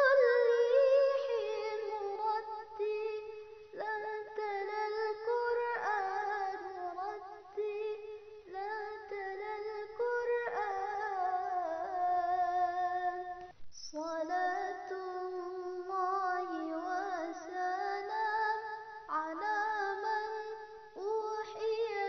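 A high female voice singing a slow, drawn-out melody with wavering, ornamented notes and no beat, with a short break about two-thirds of the way through.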